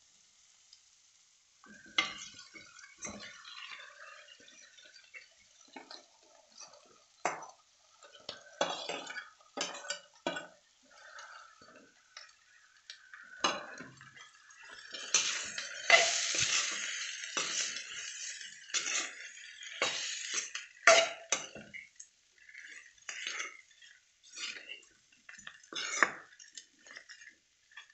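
A steel spatula stirring and breaking up boiled potatoes with fried onions in a kadai, with repeated clicks and scrapes of metal on the pan. The clicks and scrapes crowd together and get louder about halfway through.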